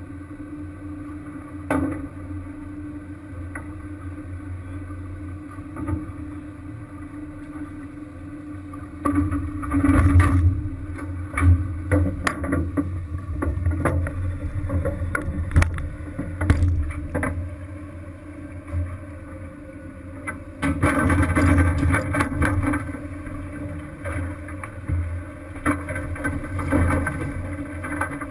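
Crab-fishing boat's engine running with a steady low hum, with louder bursts of clattering and knocking about a third of the way in and again past two-thirds.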